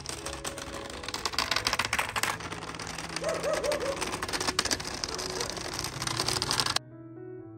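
Small wooden cart with little wheels rattling and clattering as it is dragged over a gravelly dirt path, a dense run of clicks and knocks, with a short chirp about three seconds in. It cuts off abruptly near the end and piano music begins.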